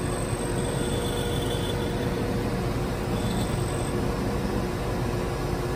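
KeyMe key-duplicating kiosk's cutter running as it cuts a metal key blank: a steady mechanical whir with faint, steady whining tones.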